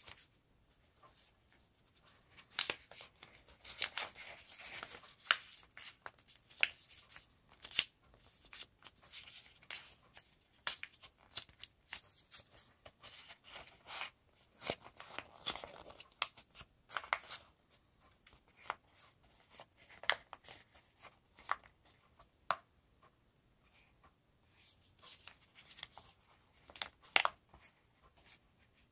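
A sheet of paper being folded and creased by hand into a paper boat: irregular crisp crackles and rustles as the paper is pressed, bent and pulled open into shape.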